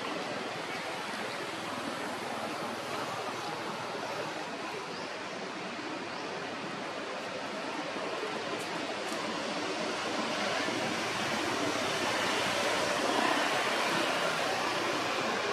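Steady rushing outdoor noise with no distinct events, growing a little louder in the second half.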